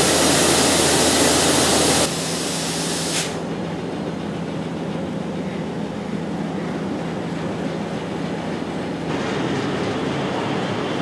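Indian Railways WDM2 diesel-electric locomotive's engine running with a steady low drone. The sound drops off sharply about two seconds in and again a second later, then carries on at a lower level.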